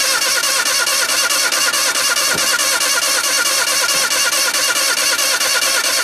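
A starter motor cranks a pickup truck's engine steadily in a fast, even rhythm, trying to start it on wood gas from a homemade gasifier with no gasoline in it; the engine does not catch.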